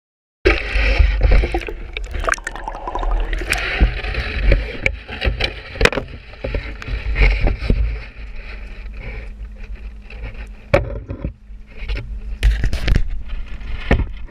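Wind buffeting the microphone and water sloshing aboard a small fishing boat, with many sharp knocks and clicks from handling on deck. A faint steady hum comes in about halfway through.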